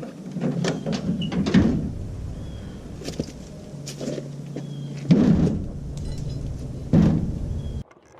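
A series of heavy thuds and clunks over a steady low hum, the loudest about five and seven seconds in; the sound cuts off suddenly near the end.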